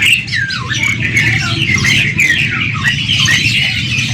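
Many caged birds chirping and calling over one another, with quick whistled swoops and squawks. Under them runs a steady low rumble of crowd and traffic.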